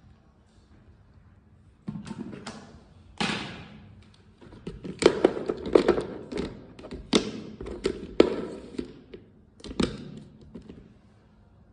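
Irregular knocks, taps and thuds, as of objects being handled and set down, starting about two seconds in and thickest in the middle.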